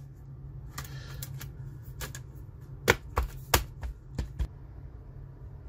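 Hands handling a Dell Latitude 7390 2-in-1 laptop's unscrewed bottom cover and chassis, giving a scattering of sharp clicks and taps. The loudest comes about three seconds in, and they stop a little before the end. A steady low hum runs underneath.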